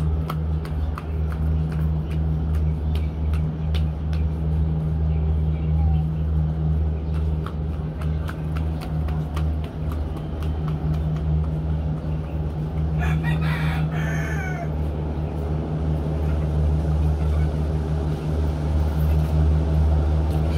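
A rooster crows once, about two-thirds of the way through, over a steady low hum.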